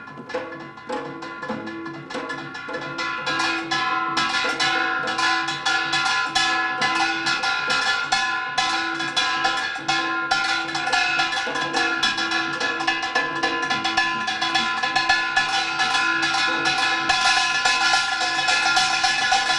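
Korean traditional percussion ensemble (samul nori) playing a fast rhythm, led by rapid metallic strokes on the kkwaenggwari small gong. The playing grows louder about three seconds in.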